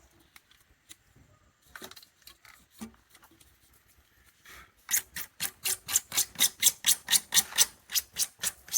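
A bare hacksaw blade, held without its frame, sawing through a pipe. A few scattered light clicks and scrapes come first, then from about halfway through a fast, even run of sawing strokes, four to five a second.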